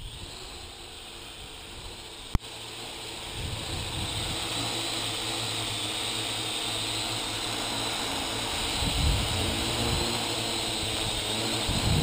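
Parrot AR.Drone 2.0 quadcopter's four electric rotors whining steadily as it hovers, growing louder about three seconds in as it comes close. A sharp click a couple of seconds in, and low gusts of wind on the microphone.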